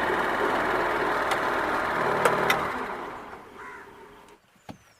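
Honda Activa scooter engine (single-cylinder four-stroke) driving a home-built scrap boat, running steadily, then dying away about three seconds in as the boat is stopped. A couple of sharp clicks come just before it fades.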